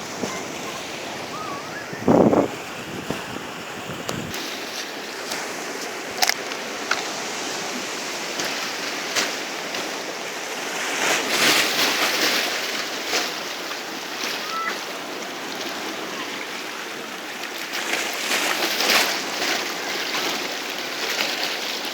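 Sea waves washing onto the shore in a strong wind, a steady rush of surf with two louder surges of breaking waves, about eleven and nineteen seconds in. A gust buffets the microphone about two seconds in.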